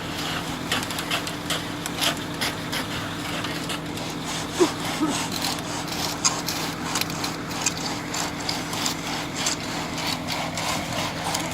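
Repeated short scraping strokes, like a stiff broom drawn across fresh concrete, over the steady hum of an engine.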